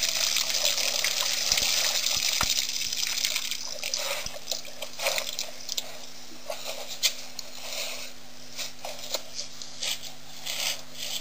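Water splashing and dripping as an elephant works the water of a waterhole with its trunk: a steady rush of water for the first few seconds, then scattered splashes and drips. A faint steady hum sits underneath.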